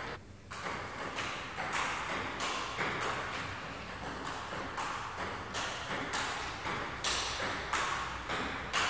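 Table tennis rally: the ball clicking off paddles and table in quick alternation, about two to three hits a second, each click trailing off in the hall's echo. Two harder, louder hits come near the end.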